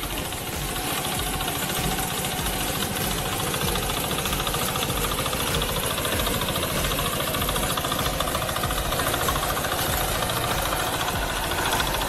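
Walk-behind reaper-binder's small single-cylinder engine running steadily under load as it cuts standing grain, with a fast, even knocking beat.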